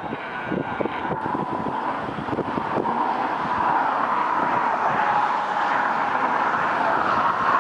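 Steady road and wind noise from a moving car, growing gradually louder.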